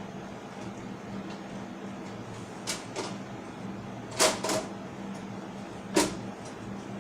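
A few sharp clicks and knocks from hardware being handled, a double knock about four seconds in and a single one near six seconds the loudest, over a steady low hum.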